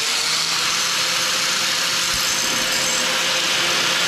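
Electric angle grinder running steadily at full speed, its abrasive disc grinding a high-speed steel lathe tool bit: a constant high-pitched whine over a hiss.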